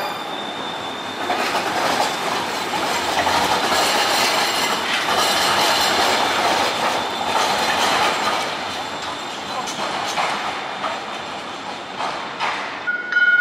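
Houston METRORail light-rail train passing on street track: steady rolling noise of wheels on rail, with clicks, fading as it pulls away. A steady high tone sets in near the end.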